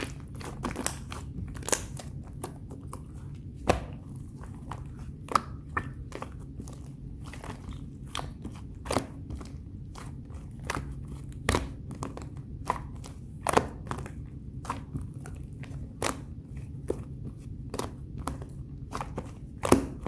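Thick, dense brownie-textured slime being pressed, folded and stretched by hand, giving irregular sharp clicks and pops about one or two a second as trapped air bursts.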